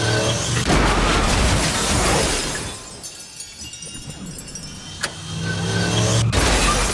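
Car engine running, then a head-on car crash with shattering glass about a second in that lasts a couple of seconds. A sharp click follows, the engine returns and a second crash with breaking glass starts near the end.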